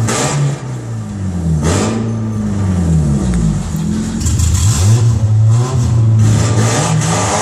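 Several car engines revving over and over, their pitch rising and falling and overlapping one another.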